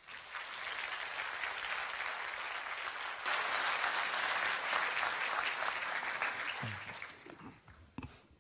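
Audience applauding, the clapping growing louder about three seconds in and dying away near the end.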